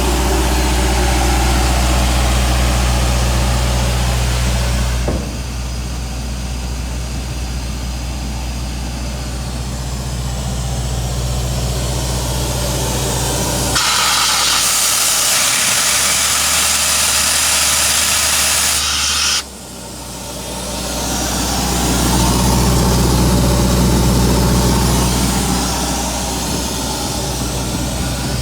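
Atlas Copco XAS 137 mobile screw compressor running on its 52 kW Deutz diesel engine, a steady low drone. About halfway through, a loud hiss of air runs for some five seconds and cuts off suddenly. Afterwards the engine note swells again.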